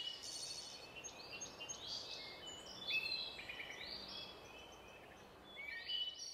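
Faint forest birdsong: many short, high chirps and quick trills from several small birds over a soft background hiss.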